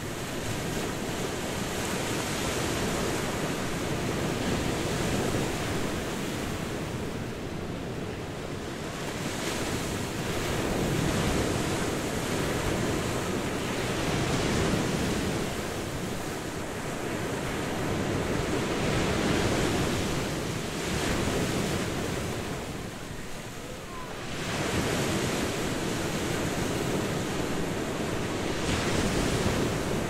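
Sea waves breaking and washing up a beach, the surf swelling and falling back every few seconds.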